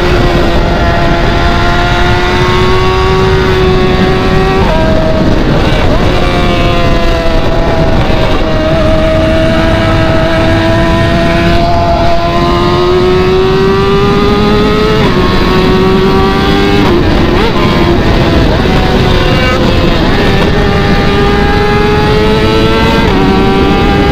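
A BMW's loud exhaust under way, its engine note climbing slowly and then dropping abruptly several times, over a heavy, rough rumble.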